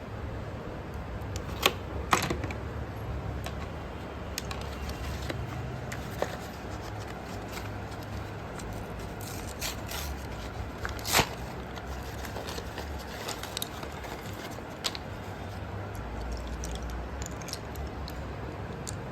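Slate pencils making scattered small clicks and light scrapes, with a sharper click about eleven seconds in, over a steady low hum.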